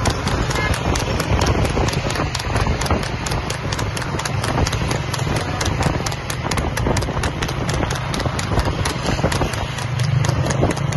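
Horse's hooves clip-clopping on asphalt at a fast, even trot, about four beats a second, as it pulls a two-wheeled tanga cart, over a steady rushing noise.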